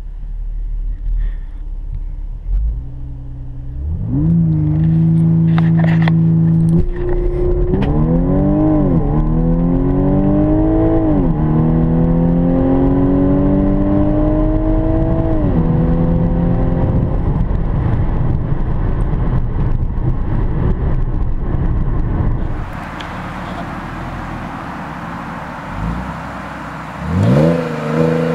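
2013 Audi S4's supercharged 3.0-litre V6 heard from inside the cabin, revving up and held steady on the brakes under launch control, then launching hard: the pitch climbs and drops back at each quick DCT upshift, three times, before settling into a steady run at speed. Near the end, heard from outside behind the car, the engine runs steadily and then revs up again.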